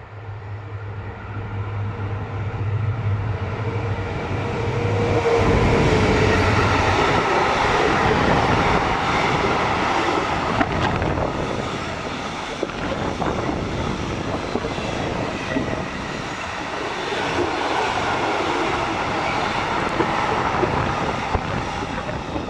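A train passes close by at speed. A steady low engine hum is heard as it approaches and drops away about five seconds in, and the loud rush of wheels on rail follows for the rest of the pass.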